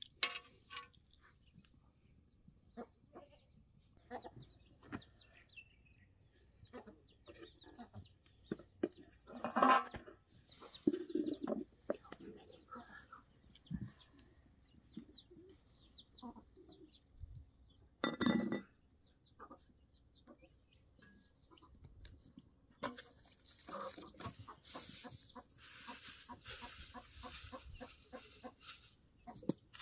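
Hens clucking with scattered short calls, and a couple of louder knocks as metal cookware is handled. Over the last several seconds a rapid crinkling of a plastic bag.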